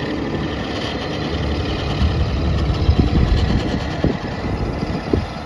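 John Deere 135C excavator's Isuzu diesel engine running under hydraulic load as the boom and bucket dig. The engine works harder from about two seconds in, and there are a few knocks from the bucket.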